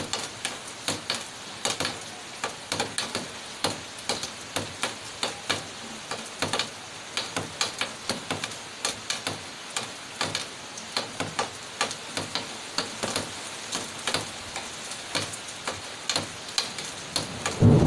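Rain falling, with large drops striking a hard surface close by in an irregular patter of sharp ticks over a steady hiss. A loud rumble of thunder breaks in at the very end.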